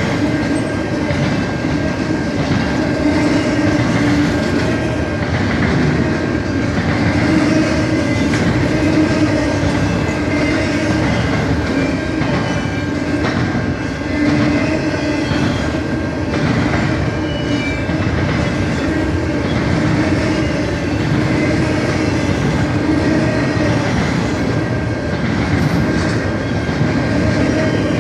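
Long CN freight train rolling steadily past: a continuous loud rumble of railcars and steel wheels on the rails, with a faint steady squeal above it.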